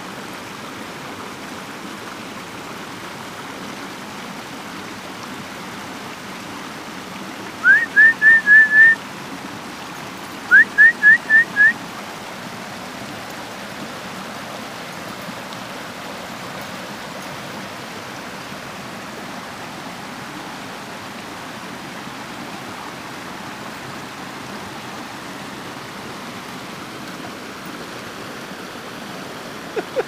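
Creek water rushing steadily over small rocky cascades. Twice, about eight and about eleven seconds in, a quick run of about five short, rising whistled notes cuts in louder than the water.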